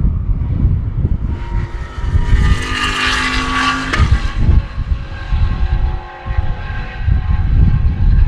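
Hansen GTR race car's 6.0-litre W12 engine running under throttle, its note building to its loudest about three to four seconds in, then dropping off sharply, with the engine still heard more faintly afterwards. Heavy wind buffeting on the microphone throughout.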